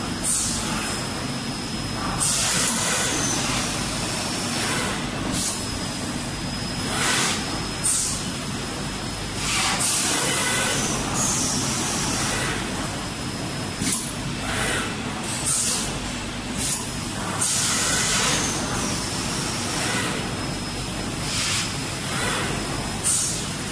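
EPE foam hot air laminating machine running with a steady hum, with bursts of hissing air every few seconds, some short and some lasting a second or two. A faint high whine comes and goes.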